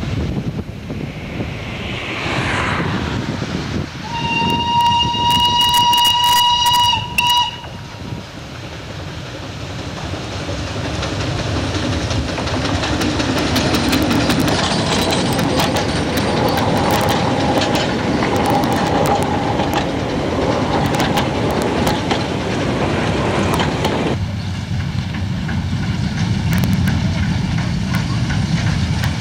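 Narrow-gauge train sounding one steady horn blast of about three seconds, then running along with wheels clattering, the noise building up gradually.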